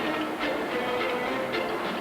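Background film-score music with bowed strings playing held notes over a regular beat.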